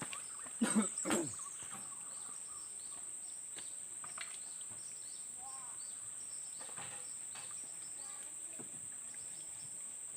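Outdoor ambience: a steady high-pitched insect drone, with scattered short bird chirps. Two brief louder sounds come about a second in.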